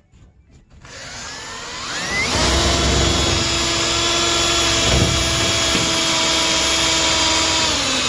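Power drill drilling out the spot welds on a steel plate. It spins up with a rising whine about a second in, then runs steadily, and its pitch dips briefly near the end.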